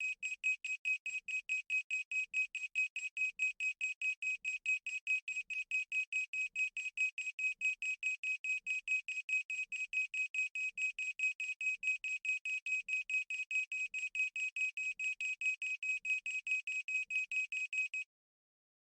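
Countdown timer's electronic alarm beeping rapidly, about five high beeps a second on one steady pitch. It stops shortly before the end.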